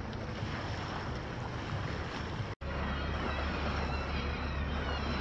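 Wind on the microphone and sea noise over a boat engine's steady low drone. The sound cuts out abruptly about halfway through, then resumes with the engine drone louder and steadier.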